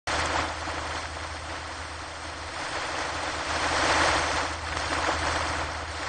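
Ocean surf breaking on a beach: a steady wash of water that swells as a wave breaks about four seconds in, then eases back.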